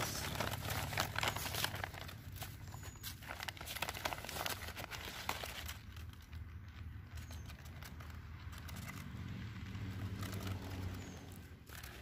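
Brown paper bag crinkling and rustling as it is unfolded and opened by hand, a dense crackle for the first couple of seconds and then scattered crinkles.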